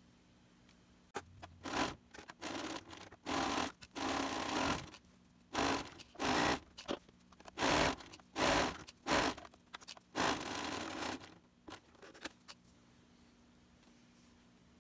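Bernina sewing machine stitching a cuff seam in about a dozen short runs, a rapid rattle that starts and stops every second or so, going quiet about 12 seconds in.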